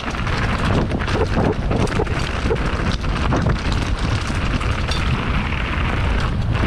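Intense Tracer enduro mountain bike riding over rough ground: steady rush of wind on the action-camera microphone with tyre roar and frequent short knocks and rattles from the bike over roots and rocks.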